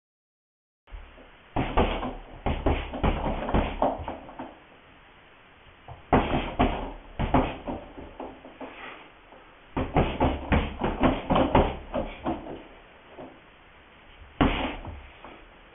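Gloved kickboxing strikes landing on a hanging heavy bag, starting about a second in: quick flurries of thuds with short pauses between combinations.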